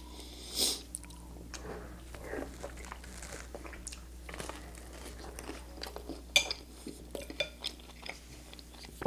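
Close-miked eating: chewing and crunching toast and soft canned pasta in tomato sauce, with a metal spoon clinking and scraping against a glass bowl in short, irregular clicks. The sharpest clink comes about six and a half seconds in.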